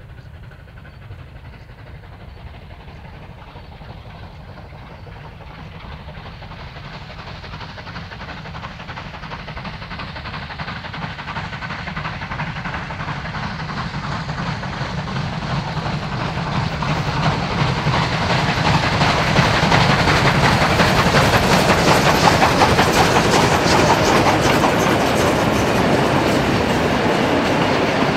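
A steam-hauled heritage train approaching, growing steadily louder over about twenty seconds, then running close by at full volume for the last several seconds.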